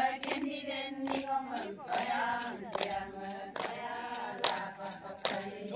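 A group of women singing a chant together in unison, clapping their hands in time at about two claps a second.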